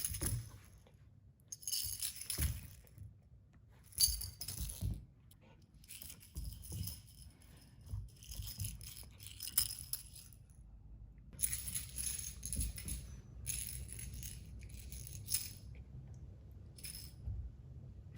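Light metallic jingling in short, irregular bursts with quiet gaps between, like a small bell or rattle being shaken by movement.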